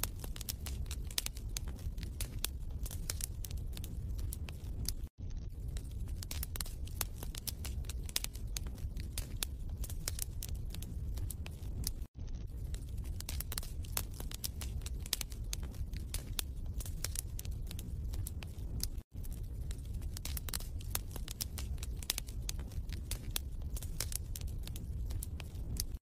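Wood fire crackling in a fireplace: irregular sharp pops and snaps over a steady low rumble of the flames. The sound drops out for an instant three times, about seven seconds apart.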